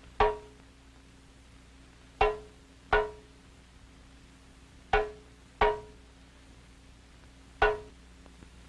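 Sparse soundtrack music: single pitched percussive strikes, six in all, mostly in pairs about two-thirds of a second apart, each ringing briefly and fading quickly.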